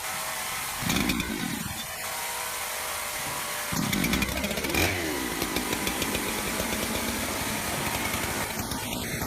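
Chainsaw engine revved twice, briefly about a second in and again, louder, near four seconds in, then dropping in pitch and running on.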